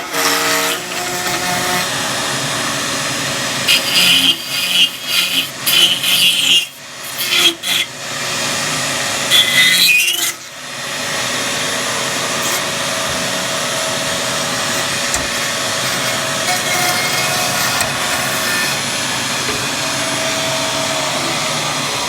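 A power tool running steadily, with several louder bursts of cutting or grinding about four to eight seconds in and again around ten seconds.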